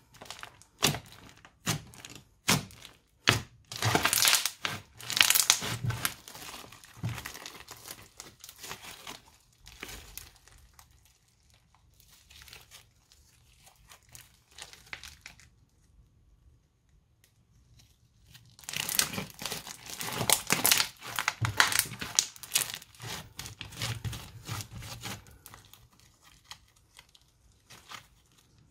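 Hands kneading, folding and stretching crunchy slime studded with small beads: dense crackling, popping and sticky tearing. It goes quieter for several seconds midway, then is busy again before fading near the end.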